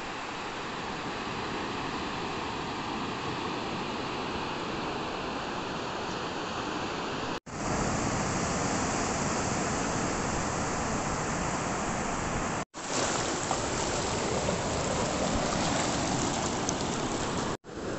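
Surf breaking and washing up a sandy beach: a steady rushing wash, louder from about seven seconds in, that cuts off abruptly three times.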